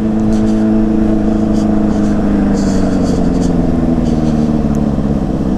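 Yamaha Fazer 600's inline-four engine running under way at a steady, loud note.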